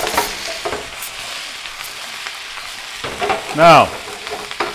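Chopped mirepoix vegetables sizzling steadily in hot olive oil in a sauté pan, with a few sharp clicks of stirring in the first second.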